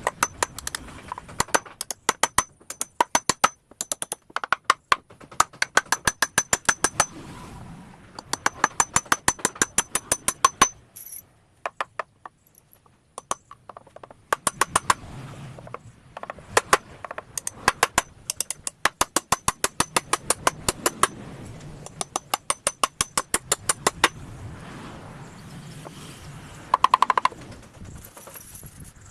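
Runs of sharp, quick taps or knocks, several a second, coming in bursts with short pauses between them.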